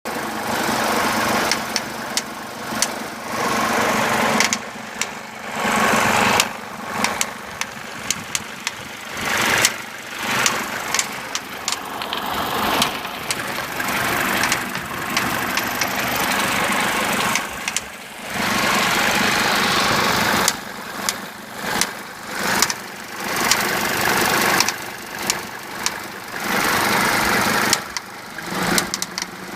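Mercedes 190D 2.5 five-cylinder diesel engine running, with a ticking and clunking noise through it and many short sharp knocks. The noise's cause is unknown: the owner has found the hydraulic lifters and injectors good, and says it goes away when the engine is revved or fully warm.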